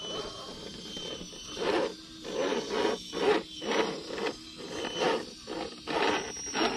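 1/10 scale SCX10-based RC crawler's brushless motor and geared drivetrain whirring in repeated short throttle bursts, about one or two a second, as it crawls over rough off-road ground.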